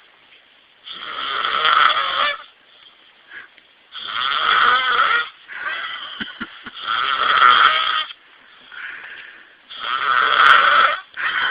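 A sleeping man snoring heavily: four loud, rasping snores about three seconds apart, with quieter breaths between them.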